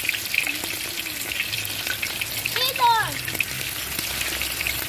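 Flour-dredged sea catfish steaks sizzling and crackling in hot oil in an aluminium caldero, with a metal spatula moving the pieces near the end. About midway comes a brief, high-pitched vocal cry that falls in pitch.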